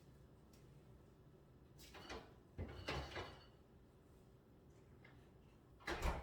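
A few short knocks and clatters from household objects being handled: one about two seconds in, a louder cluster around three seconds with a brief ringing, and another sharp knock near the end.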